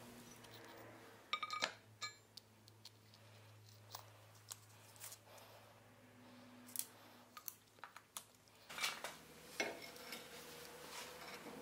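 Light clicks and clinks of a steel tape measure, a forged flat iron bar and a bolt being handled and measured on a workbench, over a low steady hum. Near the end, a few louder metal clanks as the iron piece is set against the wagon undercarriage.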